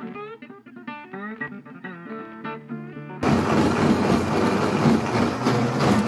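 Plucked-guitar background music, then about three seconds in a countertop blender switches on suddenly and runs loudly, grinding fresh corn kernels into a coarse paste.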